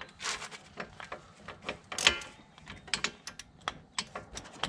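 Torque wrench's ratchet clicking in short strokes on a 22 mm front caliper bracket bolt, bringing it toward 98 ft-lb. There is a louder metallic clink about two seconds in, and a quicker run of clicks in the second half.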